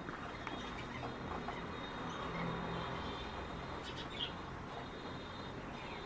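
Outdoor ambience: a steady low rumble with a thin, steady high tone over it, and a few faint, short bird chirps, the clearest a little over four seconds in.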